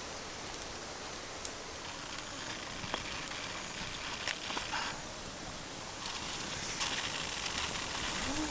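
Steady rush of running stream water, with scattered light clicks and crackles from the wood fire and the snail shells being set on the stick grill over it.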